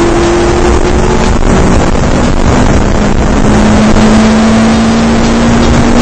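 Race car engine running hard on a straight, heard loud from inside the cabin over heavy wind and road noise. The engine note is mostly steady, dipping and climbing back about two seconds in.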